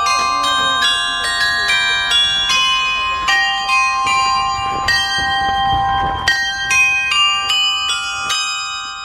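Background music: a melody of chiming, bell-like notes, each ringing on and overlapping the next.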